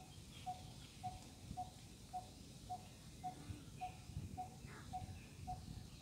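A bird repeating a single short, low note at an even pace, nearly two a second, with a few faint higher chirps from other birds.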